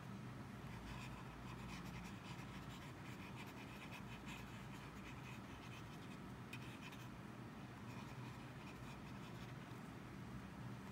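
Lamy Safari fountain pen with an extra-fine steel nib scratching faintly across sketchbook paper in many short strokes, with a steady low hum underneath.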